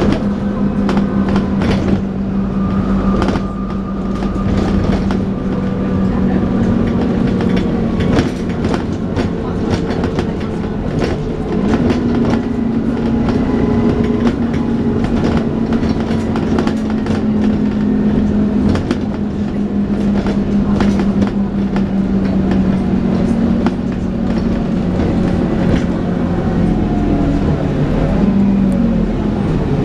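Dennis Trident 2 double-decker bus running with its steady, vacuum-cleaner-like 'hoover' whine over the engine and frequent body rattles and clicks; the whine steps up in pitch about twelve seconds in and dips near the end.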